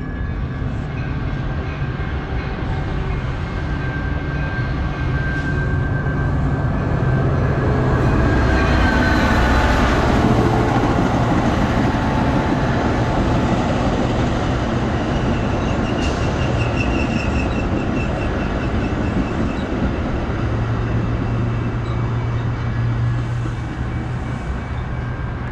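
A train running past on the tracks, a steady rumble that swells to its loudest about ten seconds in and then carries on.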